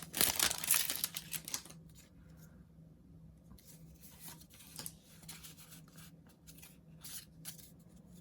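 Foil Pokémon booster pack wrapper crinkling and tearing for the first couple of seconds, then softer rustles and light taps as the cards are handled.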